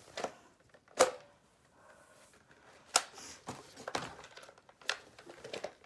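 Plastic clicks and knocks from a Nerf blaster being handled while foam balls are forced into it. Two sharp clicks come about two seconds apart, with softer knocks between and after.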